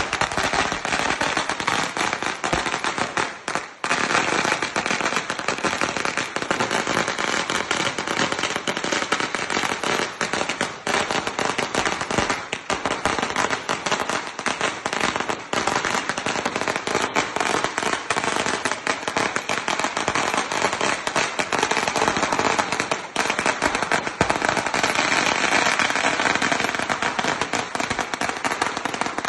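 A long run of firecrackers going off in an unbroken, rapid crackle of bangs, with a short dip just before the four-second mark.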